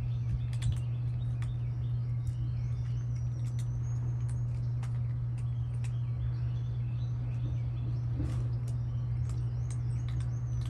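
Cats crunching dry food, heard as scattered short clicks, while small birds chirp and a steady low hum runs underneath.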